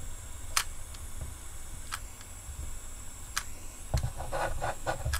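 A few sharp single clicks about a second and a half apart, then a cluster of light knocks near the end, from hands working on a plastic speaker enclosure. A steady low hum runs underneath.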